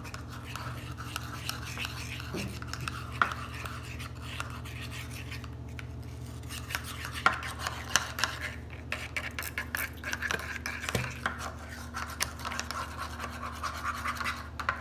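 A spoon stirring baking soda into boric acid water in a small pot, scraping round the pot with frequent irregular clinks, the slime activator being mixed. A steady low hum runs underneath.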